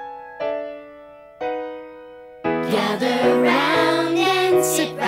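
An upright piano plays a short introduction of separate chords, each struck and left to fade. About two and a half seconds in, a children's song begins, with voices singing over fuller, louder accompaniment.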